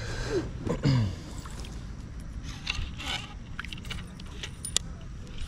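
Small clicks and rattles of gear being handled aboard an inflatable kayak, over a steady low wind-and-water noise. Near the start there are two short sounds falling in pitch, and around the middle a brief rustle.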